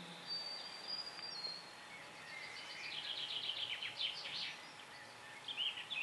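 Songbirds singing in the trees: a high, thin whistled note held for about a second, then a quick run of chirping notes a couple of seconds later and a few more near the end, over a steady background hiss.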